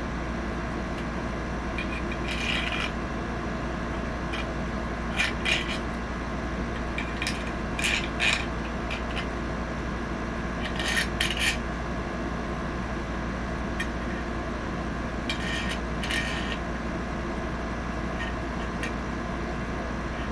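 Short metallic scrapes and clicks of tools and a sight being worked onto the slide of a Glock-style BB pistol, in brief pairs of bursts every few seconds with an occasional single click, over a steady low hum.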